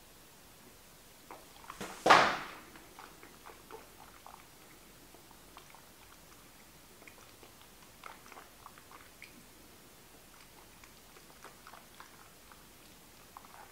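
Faint wet mouth clicks and smacking as a taster works a sip of whisky around his mouth, with one loud breathy exhale about two seconds in.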